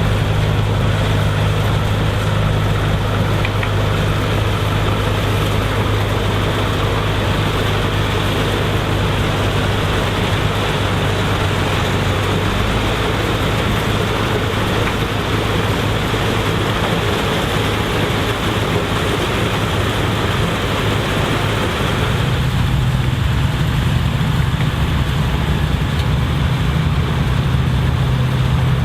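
Vintage combine harvester running as it harvests corn: a steady engine hum under the clatter of the harvesting machinery. About three-quarters of the way through, the engine note steps up in pitch and the clatter thins.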